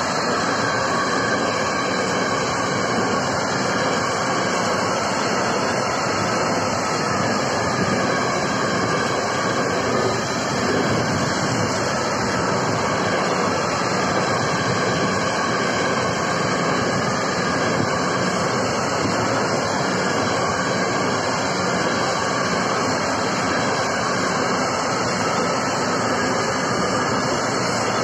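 Freight train of tank wagons rolling steadily past: a continuous, unbroken noise of steel wheels running on the rails, even in loudness throughout.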